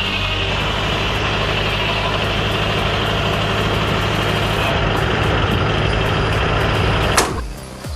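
Old belt-driven saw running, a steady mechanical drone with a low hum. About seven seconds in, a sharp crack is heard and the machine noise drops away abruptly.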